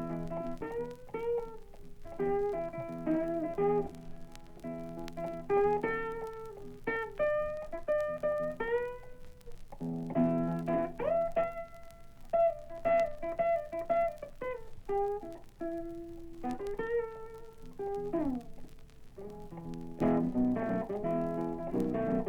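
Blues guitar playing an instrumental break with no singing: single-note lead lines with bent notes over a low bass note that comes back at the start, about ten seconds in and near the end.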